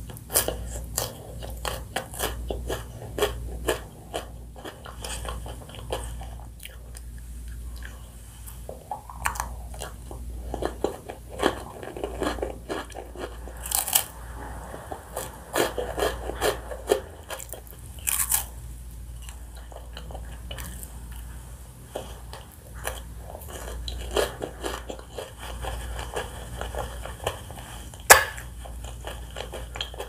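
Close-miked mouth sounds of eating a chocolate ice cream bar with a crunchy nut-studded coating: crackling crunches as the shell breaks, with wet chewing in between. There are a few sharp snapping bites, the loudest near the end.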